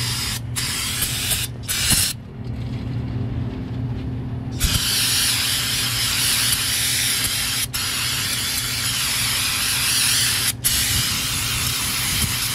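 Aerosol cleaner sprayed in several long hissing sprays with short breaks between, washing spilled brake fluid off a newly fitted master cylinder and brake booster, over a steady low hum.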